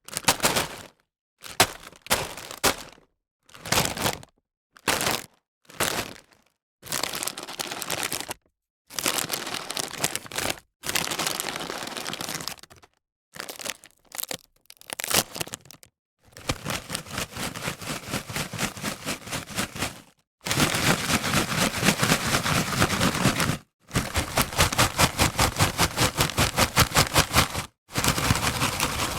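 Potato chips crunching and snapping, a sequence of separate sound-effect takes. It starts with short single crackly snaps, then moves to longer runs of dense crunching. In the second half there are long stretches of rapid, even crunches, about four or five a second, with brief gaps between takes.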